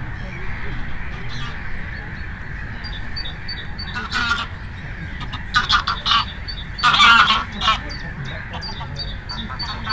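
Geese honking: a few loud calls, one about four seconds in and a louder cluster between five and a half and eight seconds in, over a steady low rush of wind and water.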